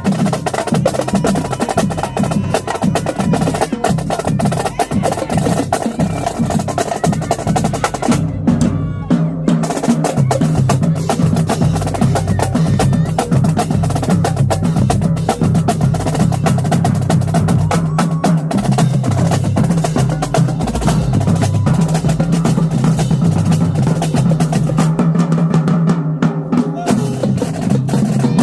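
Marching drumline playing a fast, loud cadence: rapid snare drum strokes and rolls over pitched tenor and bass drums. The high snare crack drops out briefly twice, about a third of the way in and near the end.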